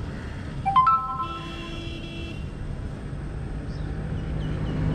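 Low roadside traffic rumble. About a second in, a short sharp rising chirp, the loudest sound, is followed by a vehicle horn sounding one steady note for about a second. Faint high chirps come near the end.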